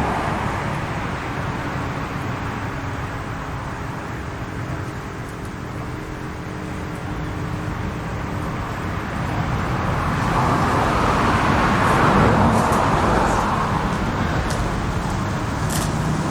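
Federal Signal RSH-10A Thunderbeam rotating siren sounding a steady tone, its level swelling and fading as the horn turns, loudest about twelve seconds in. Road-traffic rumble lies underneath.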